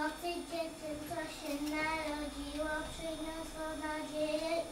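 A child singing a slow melody of long held notes.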